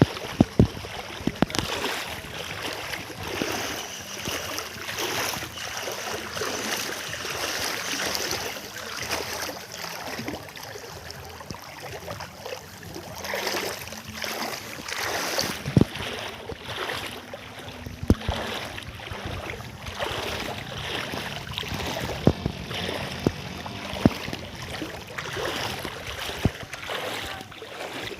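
Knee-deep floodwater on a road sloshing and splashing steadily as someone moves through it, with several sharp knocks scattered through it.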